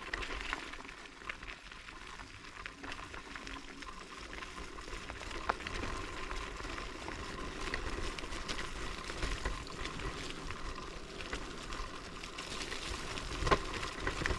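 Electric scooter's small semi-off-road tyres rolling over a wet, muddy forest track: a steady wet hiss and crackle, with many small clicks and a few stronger knocks near the end.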